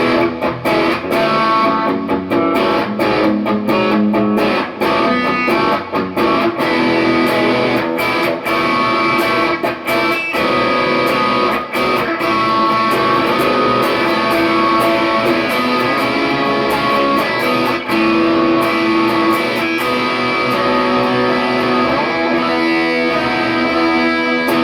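1996 Ibanez Talman electric guitar on its Lambertone Grinder bridge humbucker, played through a Kemper amp profile: a continuous passage of picked notes and chords that ring on between frequent sharp pick attacks.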